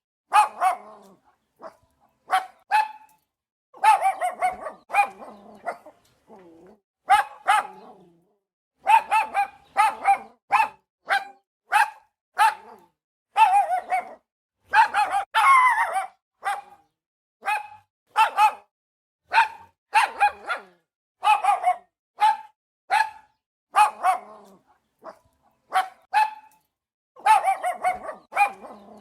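A dog barking over and over: runs of short, sharp barks, several a second, with brief pauses between the runs.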